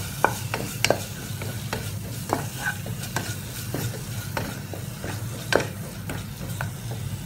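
Wooden spatula stirring and scraping a thick tomato and spice paste around a nonstick pot, with irregular scrapes and taps against the pan over a soft sizzle and a steady low hum. The spice powders are being sautéed on a low flame until their raw smell cooks off.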